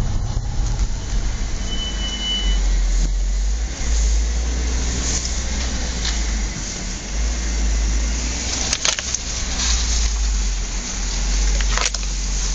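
Audi S4 B8 driving with a steady low rumble. About two seconds in there is one brief high-pitched brake squeal lasting about a second. A couple of sharp clicks come near the end.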